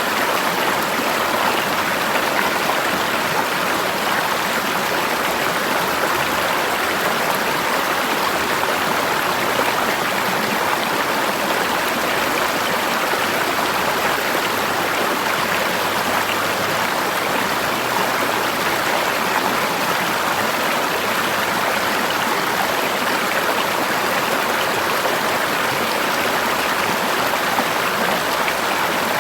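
River water flowing over rocks: a steady, even rush and babble.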